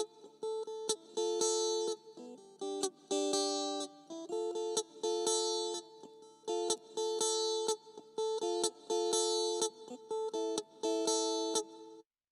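Guitar music: a repeating phrase of plucked notes and chords in short, clipped phrases that cut off suddenly near the end.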